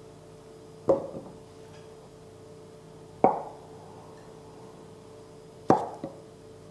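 Raw beef marrow bones set down one at a time on a wooden cutting board: three dull thuds a couple of seconds apart, the last followed by a small second knock.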